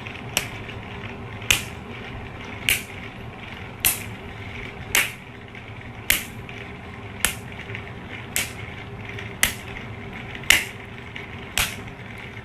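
A sharp click repeating about once a second, eleven times, over a steady background hum.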